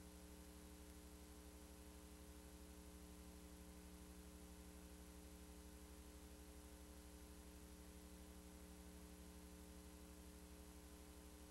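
Near silence: a faint steady electrical hum with light hiss from the recording, with no other sound.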